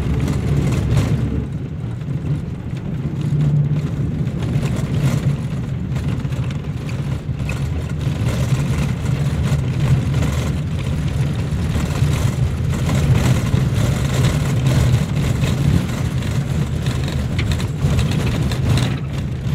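Engine and road noise of a moving vehicle heard from inside the cabin: a steady low drone.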